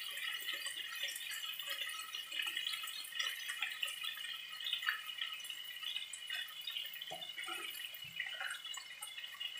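Garlic-marinated shrimp frying in hot oil in a nonstick wok, a steady, dense crackling sizzle, lively because the shrimp went in straight from the fridge. Near the end a spatula stirs them, with a few scrapes and knocks against the pan.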